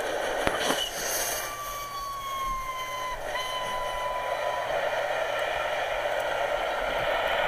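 A steam whistle sounds twice: a long note that sags slightly in pitch, then a shorter blast at much the same pitch, over a steady hiss that grows louder near the end. There is one sharp click about half a second in.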